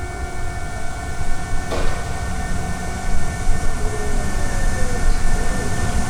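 Keisei electric train running on the line: a steady low rumble with several held whining tones over it, and a single sharp click about two seconds in.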